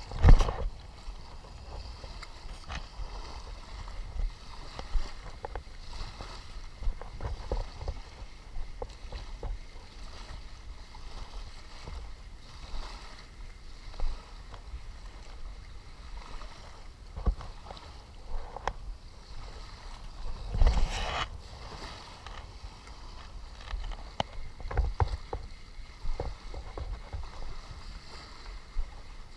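Water sloshing and lapping at the shoreline, with irregular muffled thumps and knocks throughout; the loudest thumps come just after the start and about two-thirds of the way through.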